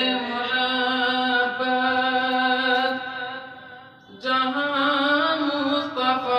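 A man singing a naat unaccompanied, holding long, steady melodic notes. The phrase fades out after about three seconds and he starts a new one about four seconds in.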